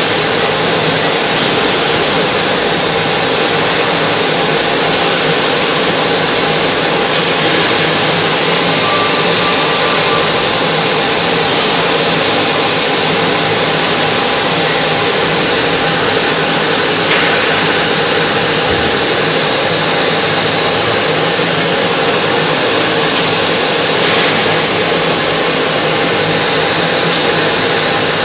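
Yanmar ViO30 mini excavator's diesel engine running steadily at a loud, even level.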